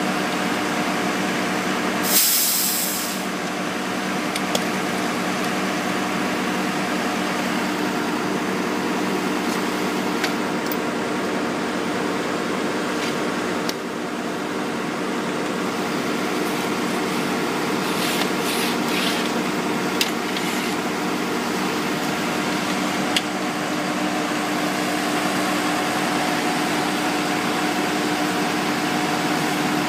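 Engines of asphalt-paving machinery running steadily, a close, even drone. About two seconds in comes one short, sharp hiss of air, and a few light clicks follow later.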